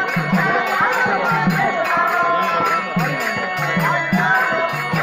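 Live traditional stage-drama music: drums keeping a steady beat with small cymbals ticking evenly and a wavering melodic line over them.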